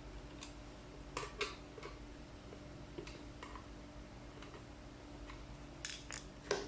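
Irregular light clicks and knocks of flat-pack drawer parts being handled and fitted together during assembly, with a few louder knocks near the end.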